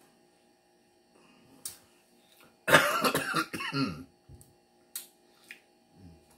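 A man coughs in a short fit of several quick coughs, about three seconds in, after taking a drink from a bottle.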